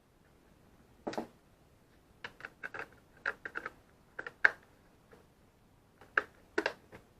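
Hard clicks and knocks from handling the Graupner MX-20 radio transmitter as its battery and parts are fitted back into place. Single taps and quick runs of clicks come in irregular groups, the loudest about four and a half seconds in.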